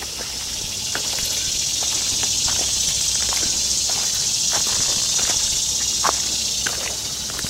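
A high, steady insect buzz that swells over the first couple of seconds and fades near the end, with scattered small clicks and crunches of footsteps on the ground.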